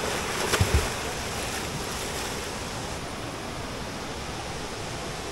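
Steady rush of flowing water, loud and even, with a couple of low thumps just under a second in.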